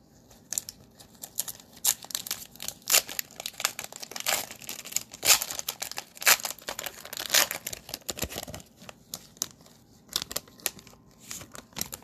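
Cellophane wrapper of a trading-card cello pack crinkling as it is torn open by hand: a dense run of sharp crackles that thins out in the last few seconds.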